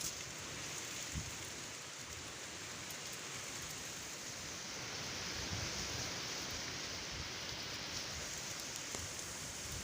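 Steady hiss of noise like rain or rushing water, with a few faint taps.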